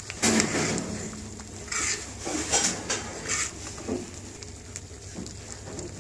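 A metal ladle stirs thick, cooked red lentil dal in an aluminium saucepan, giving a handful of wet scrapes and knocks against the pan over the first four seconds. The loudest comes right at the start, and it settles after that.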